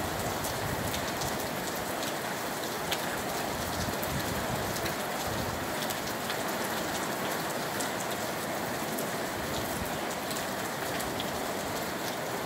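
Steady rain falling, with many small, sharp drop hits close by over an even hiss.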